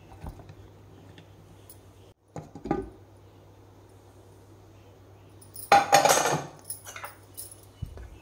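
A steel ladle clanking and scraping against the aluminium pressure-cooker pot while stirring soup. There is a short clatter just before three seconds in, and the loudest clanking comes at about six seconds.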